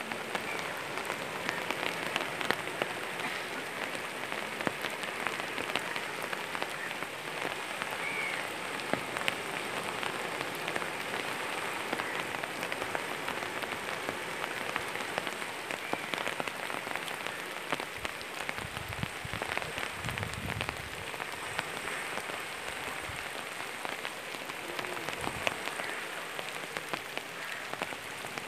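Swollen flood river rushing past the bank: a steady, dense splashing and hissing of turbulent water, with a brief low rumble about two-thirds of the way through.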